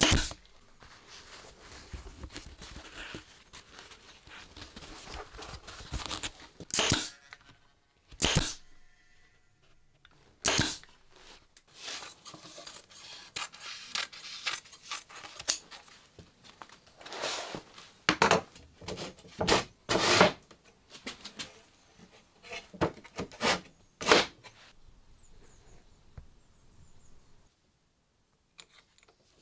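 A pneumatic upholstery staple gun fires single sharp shots at irregular intervals. Between the shots, cloth rustles and is torn.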